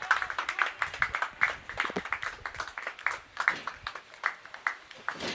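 Scattered hand clapping from a small group, quick sharp claps that thin out near the end.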